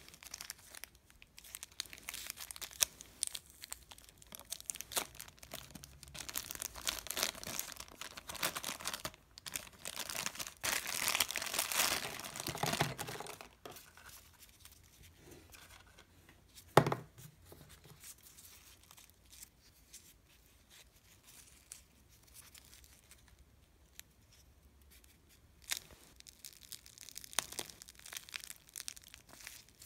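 Thin clear plastic bag and paper wrapping crinkling and tearing as they are handled and pulled open, busiest in the first half. About halfway through comes one sharp click, the loudest sound; then it goes quiet before more crinkling near the end.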